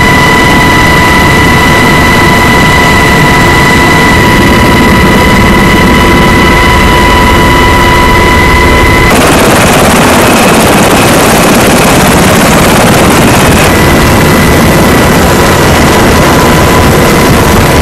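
Loud, steady in-flight noise of a Navy Sea Hawk helicopter, heard from inside the cabin: rotor and turbine engine noise with a high, steady whine. About nine seconds in the whine drops away and a broader rushing noise takes over.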